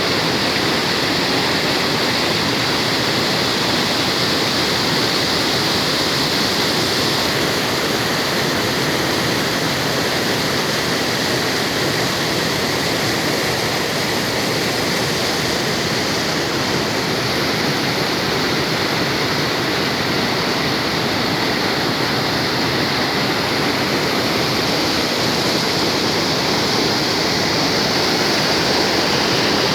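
Mountain spring water running loudly and steadily, a continuous rushing like a small waterfall.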